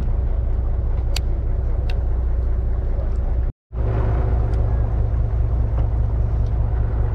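Boat engine running with a steady low rumble under the hull and wash noise, broken off briefly a little past halfway.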